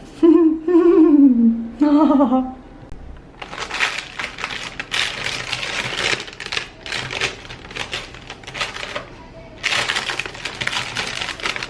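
Dense, crackly rustling of a wrapping sheet being handled as a stuffed meatloaf is worked closed, in two long stretches with a short pause about nine seconds in. A brief stretch of a woman's voice comes first.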